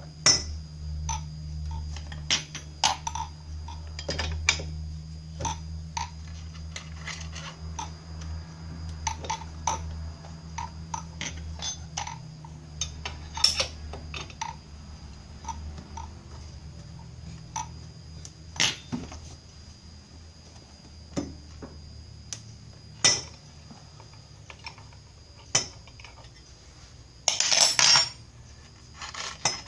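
Metal scooter transmission parts and hand tools clinking and knocking irregularly as a Honda Vario 125's CVT variator is put back together by hand, over a steady low hum. A brief louder scrape comes near the end.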